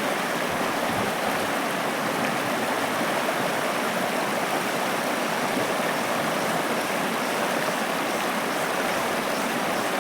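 River water flowing, a steady unbroken rushing noise.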